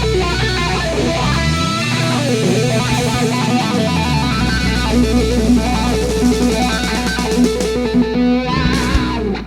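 Loud music led by electric guitar, which cuts off abruptly at the very end.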